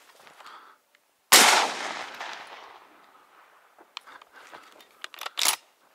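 A single close shotgun shot about a second in, its echo trailing off over about a second and a half. It is followed near the end by a few short sharp clicks and knocks.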